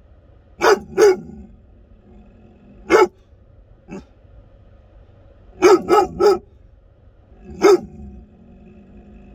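A young American Akita barking inside a car: two barks, then one, then a quick run of three, then one more, over a low steady rumble.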